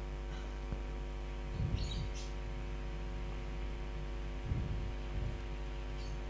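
Steady electrical hum from the microphone and sound system during a pause, with a few faint high chirps about two seconds in and a couple of soft low puffs.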